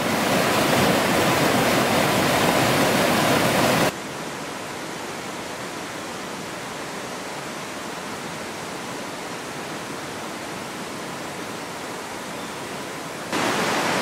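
Rushing water of a small cascading waterfall spilling over rock ledges, a steady even roar. About four seconds in it drops abruptly to a quieter steady rush, and it grows louder again shortly before the end.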